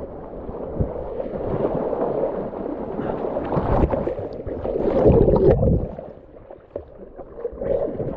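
River current rushing and splashing around a whitewater kayak as it is paddled, with paddle blades splashing into the water. Loudest about five seconds in, then quieter.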